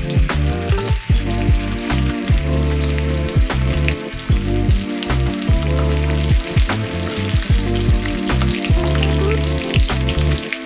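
Shrimp frying in hot garlic oil in a small cast-iron skillet: a steady sizzle with scattered small pops. Background music with a steady beat plays over it.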